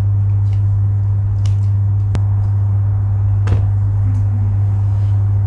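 A steady low electrical hum in the room, with a few light knocks, the sharpest about three and a half seconds in.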